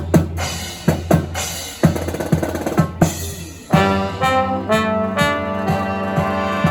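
A marching band's drum section plays a cadence on snare and bass drums, and a little past halfway the brass comes in together with held chords over the drums.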